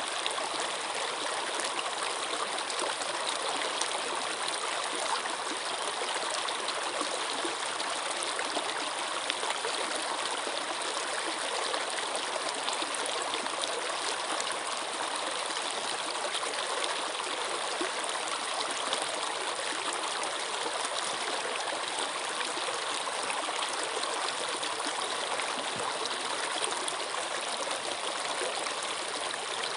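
Running water flowing steadily, an even, unbroken sound with no pauses or changes.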